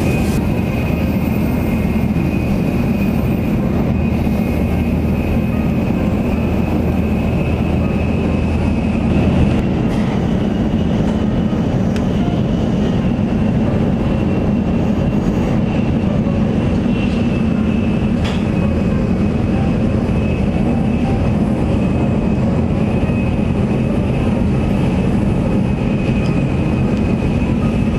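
Tokaido Shinkansen Nozomi train running at speed, heard inside the passenger cabin: a steady rumble with a faint, even high whine.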